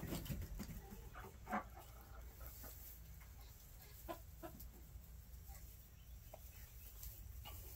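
Chickens clucking softly: a scattering of short, separate clucks.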